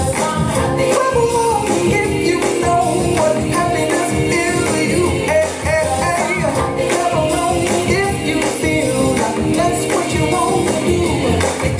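Pop song with a vocalist singing over a steady beat, played loud as backing music for a dance routine.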